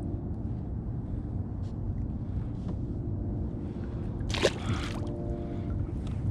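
Water lapping against a kayak under a faint steady hum, then about four seconds in a single short splash as a small smallmouth bass is dropped back into the river.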